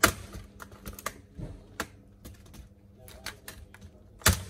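Sharp clicks and snaps of a laptop keyboard's metal backing plate and plastic top case as they are pried apart with a metal pick, the loudest right at the start and another near the end, with several lighter ticks between.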